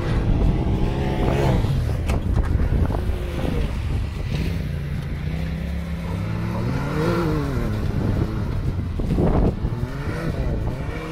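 Side-by-side UTV engine revving hard, its pitch rising and falling several times as the machine slides and spins its wheels through loose sand.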